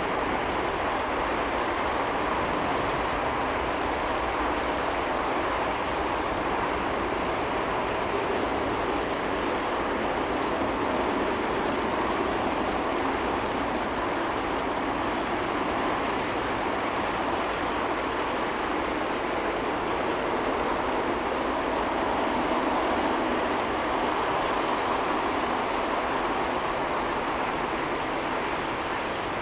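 Steady rolling rumble of a long G-scale model freight train's wheels running along the track, many cars passing in an unbroken stream.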